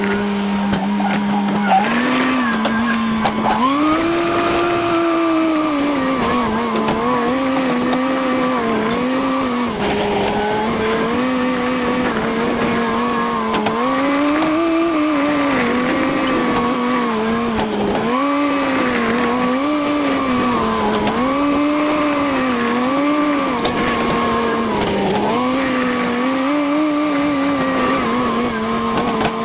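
Tractor engine running under a varying load, its note rising and falling over and over, about once a second.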